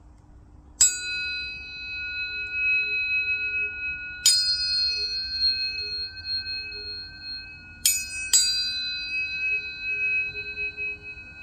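Planetary tuning forks struck four times, the last two about half a second apart. Each strike gives a sharp ping that rings on as several steady high tones, and the tones overlap and build up.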